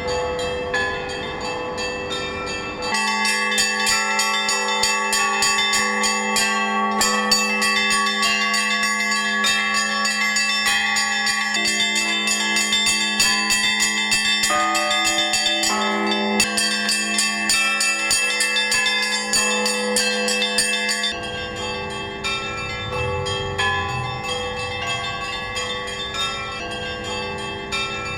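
Russian church bell ringing (zvon): several bells struck together, rapid strikes of small bells over the steady hum of a larger bell. It grows fuller and louder about three seconds in and eases somewhat in the last several seconds.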